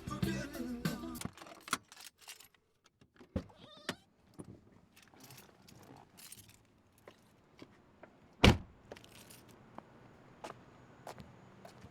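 Car stereo music with singing cuts off about a second in. Then come small clicks and a jangle of keys, and one loud thump about eight and a half seconds in.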